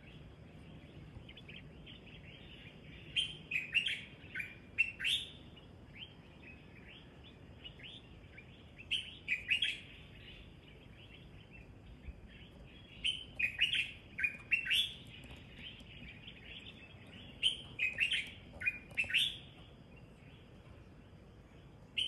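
Birds singing in the morning: bursts of quick, bright chirps that come in bouts every four or five seconds, with quiet between them.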